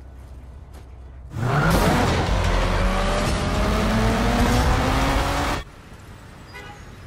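Motor vehicle engine revving up, its pitch rising slowly for about four seconds over loud road noise, then dropping away suddenly. A low rumble runs before and after.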